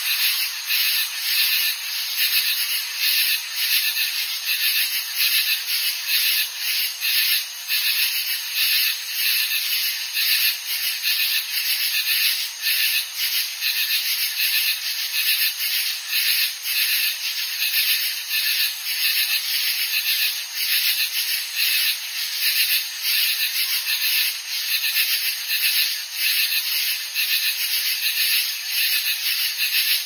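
Chorus of katydids calling: a continuous high-pitched raspy buzz that pulses about twice a second.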